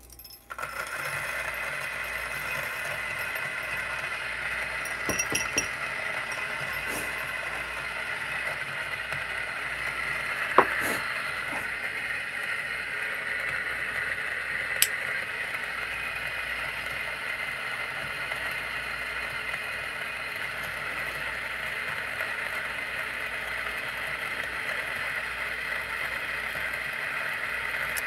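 Option-O Lagom P64 coffee grinder starting up about half a second in and then running steadily at a low speed setting, grinding espresso beans through its 64 mm flat burrs. Two brief sharp clicks come partway through.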